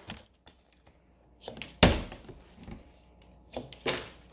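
A plastic water bottle knocking onto a wooden tabletop: one sharp knock about two seconds in, with lighter taps and handling of the bottle near the end.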